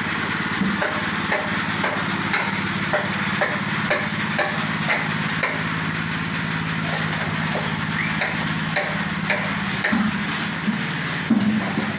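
An engine running steadily, with repeated sharp knocks, about two a second, over it and a few louder ones near the end.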